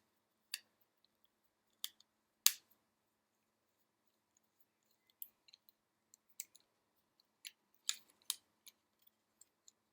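About eight small, sharp clicks and taps, scattered and unevenly spaced. They come from a screwdriver undoing the single screw on a Korg Triton Extreme joystick assembly. The loudest click is about two and a half seconds in.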